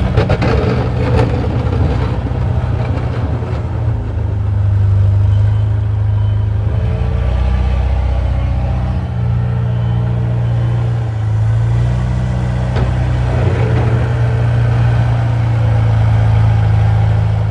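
Heavy engine running steadily with a low, even hum, rising slightly in level a few times, plus a few light clicks near the start.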